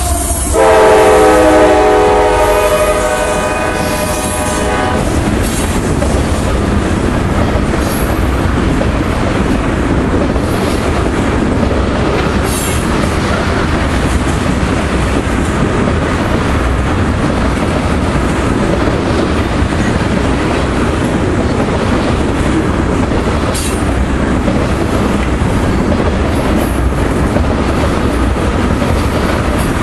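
Freight train locomotive horn sounding a chord for about four seconds, falling slightly in pitch as the lead locomotives pass, then a long string of loaded tank cars rolling by with a steady rumble and wheel clatter over the rails and the odd brief high squeal.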